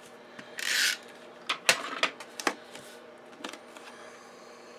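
Snail tape-runner adhesive rasping once across cardstock just before the first second, followed by a few sharp clicks and taps as the cardstock mat is handled and set down on the card base.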